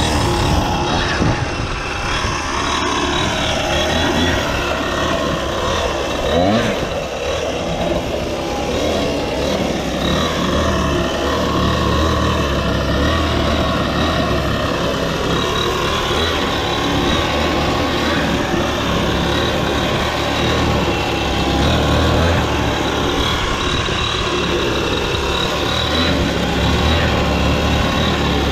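Small gasoline engine of a homemade radio-controlled go-kart running as the kart is driven slowly, its engine speed rising and falling now and then.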